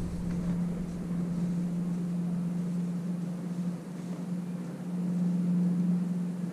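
Motorboat engine running steadily, a low hum that grows louder about five seconds in.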